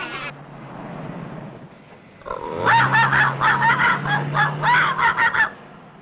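Cartoon soundtrack effects: a low steady hum, then a little over two seconds in a rapid string of honks with bending pitch, about three a second, for about three seconds over a steady low drone.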